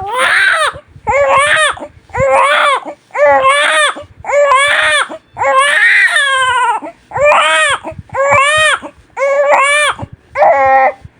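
Newborn baby crying hard in a steady rhythm: about ten loud wails, roughly one a second, each rising and falling in pitch, with quick breaths between and one longer wail midway.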